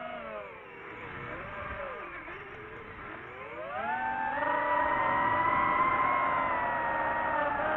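DJI FPV drone's motors and propellers whining. The pitch sags as the throttle eases off, then climbs steeply about three and a half seconds in and holds high under throttle.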